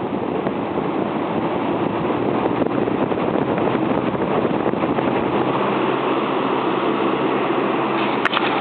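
Lasko 3733 box fan fitted with a Robeson box fan's blade, running on high: a steady rush of air with a faint motor hum, building over the first couple of seconds as the blade comes up to speed. A single click near the end.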